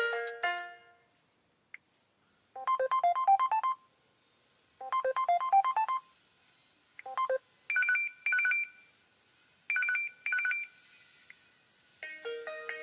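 Short preloaded message tones on an LG K10 phone: a quick rising chime figure played twice, then a brief two-note blip, then two pairs of high double beeps. A melodic ringtone trails off at the start, and another begins near the end.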